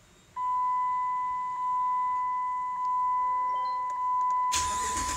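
The dashboard warning chime sounds as a steady high tone, re-sounding about every second once the ignition is switched on. About four and a half seconds in, the 2008 Dodge Ram's 5.7-litre V8 fires up suddenly on its newly fitted starter and runs, while the chime carries on over it. This is the first start after the starter replacement.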